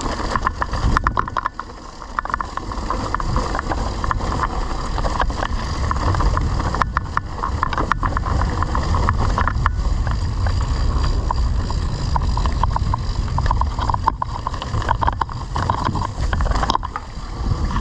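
Mountain bike riding over rough trail: wind and rumble on the microphone, with constant rattling and clicking as the bike jolts over bumps.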